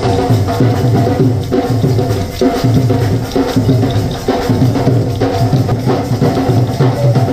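Dhol drum beating a steady dance rhythm, with a held melody line sounding over it.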